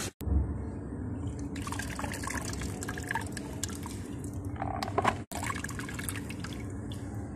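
Chopped spinach and potato being washed by hand in an aluminium pot of water: swishing and splashing, with water pouring and dripping back into the pot as handfuls of greens are lifted out. The sound breaks off briefly twice, just after the start and about five seconds in.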